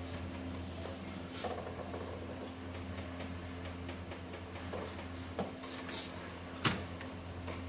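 Plastic parts of a Brother T720 inkjet printer handled during repair: a few sharp clicks and knocks, the loudest about two-thirds of the way through, over a steady low hum.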